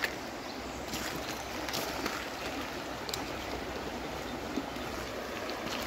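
Shallow river water running steadily, with a few faint short clicks.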